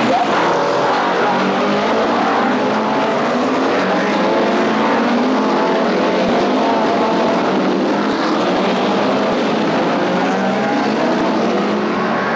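A pack of DTM touring cars racing through a corner, several engines revving up and down at once with their pitches overlapping.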